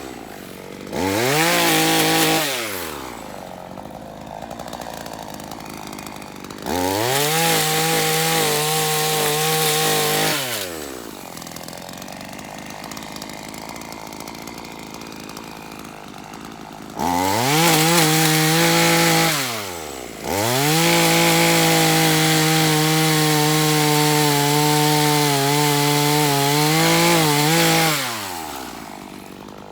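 Chainsaw revving up to full speed four times, cutting through dead tree wood. Each run rises quickly in pitch, holds, and falls back to a lower, quieter running level. The longest run comes near the end and lasts about eight seconds.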